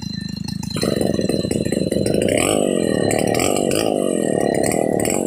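Stihl chainsaw idling, then opened up to full throttle about a second in and cutting into a hardwood timber slab, its engine pitch dipping and rising as the chain bites.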